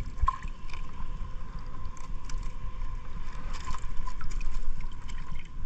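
Lake water sloshing and lapping around a mesh keepnet being handled by waders, with a few small splashes and clicks, and wind rumbling on the microphone.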